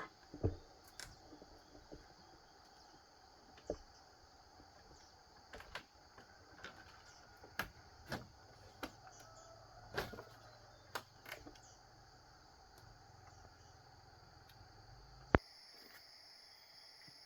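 Scattered light clicks and knocks, about a dozen, over a steady faint background drone that sounds like insects; one sharp click about fifteen seconds in, after which the background changes.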